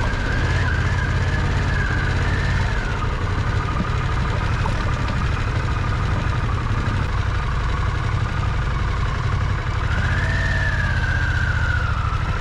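Harley-Davidson Pan America's V-twin engine running steadily at low riding speed, with a fainter higher whine that rises and falls twice.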